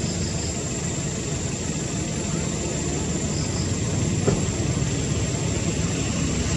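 Steady low engine-like rumble with a faint steady high whine above it, a few faint chirps, and one short click about four seconds in.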